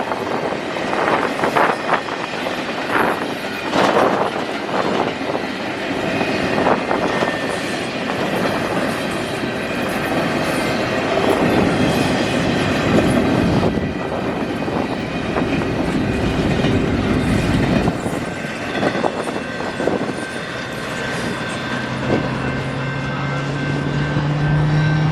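Canadian National intermodal container freight train rolling past, its wheels clicking and knocking over the rail joints with a steady rumble. Near the end a steady low hum, rising slightly in pitch, joins in.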